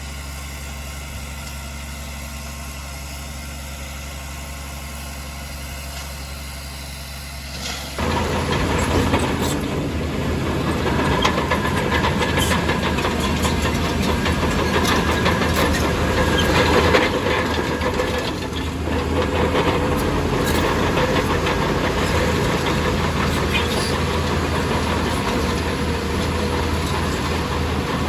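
Diesel engine of a Shantui DH17C2 crawler bulldozer idling with a steady low hum, then about eight seconds in it suddenly gets louder as the machine works, with steel tracks clanking and rattling over the engine noise.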